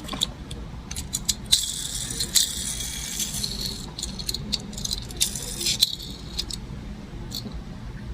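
Hands handling diecast toy-car packaging: plastic crinkling and crackling in two stretches, amid scattered clicks, taps and rattles.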